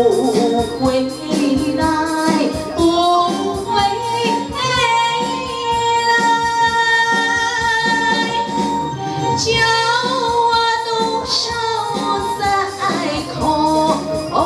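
A woman singing a Taiwanese opera (gezaixi) aria into a microphone, with instrumental accompaniment and a steady beat underneath; long notes are held through the middle.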